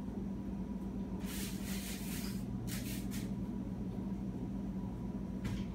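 Soft brushing and rustling of hands spreading flour over parchment paper and handling a ball of dough, in a few short bursts, over a steady low hum.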